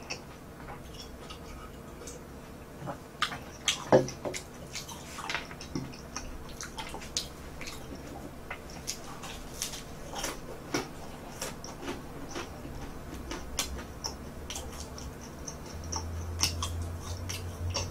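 Close-miked chewing of crispy toasted garlic bread: many sharp crunchy clicks scattered throughout, the loudest about four seconds in, with a fresh bite into a slice near the end.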